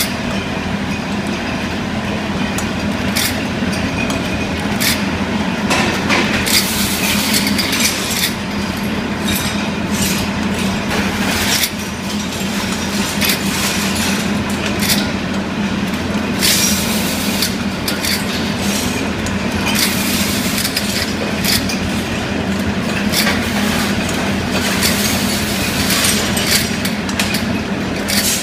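Rotary glass-bottle rinsing, filling and capping machine running: a steady mechanical hum with frequent irregular clicks and knocks from the bottles and capping heads as they turn.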